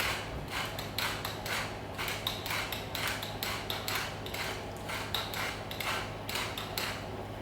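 Pepper mill being twisted to grind pepper, a steady run of short rasping strokes at about three or four a second.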